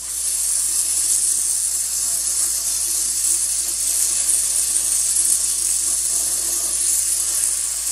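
Brazing torch flame hissing steadily as it heats a copper refrigerant line joint for 15% silver solder.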